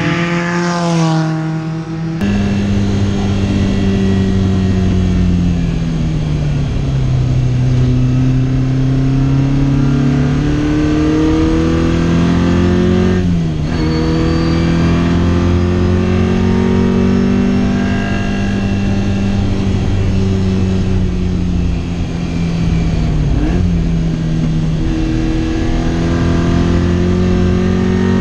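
Race-prepared Lotus Twin Cam four-cylinder engine in a Tornado Fiat 600 at full throttle on a race track. At first the car passes by and its engine note falls in pitch. Then it is heard from inside the cabin, the revs climbing and dropping through gear changes, with a sudden drop at an upshift about 13 seconds in and again about 23 seconds in.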